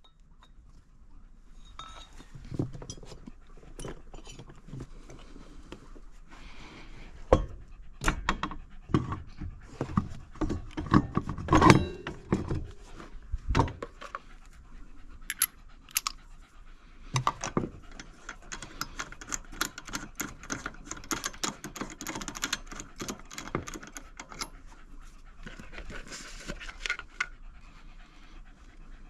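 A German hunting terrier (jagdterrier) panting steadily in the summer heat. Around the middle comes a run of sharp knocks and clinks as the ATV's wheel is handled, louder than the panting.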